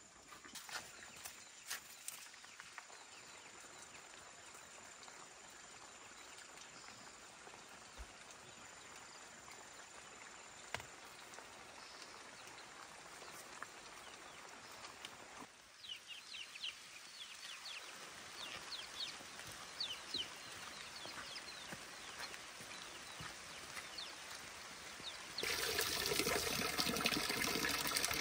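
Water trickling and pouring, with scattered small clicks. Near the end it jumps suddenly to a louder, fuller rush of running water.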